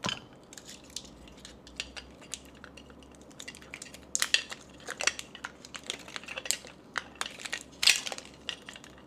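Small hard plastic parts of a toy water gun's battery pack being handled: scattered clicks, taps and crackles, with busier clusters about four seconds in and again near the end.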